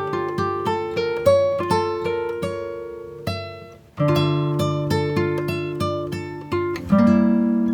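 Background music of an acoustic guitar picking single notes and chords, each note dying away. The music dips briefly and comes back with a loud chord about four seconds in.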